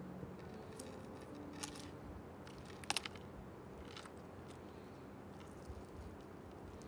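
Large knife carving a roasted leg of lamb on a wooden platter: the crisp crust crunches and crackles under the blade, with a few sharp clicks, the loudest a quick double click about three seconds in.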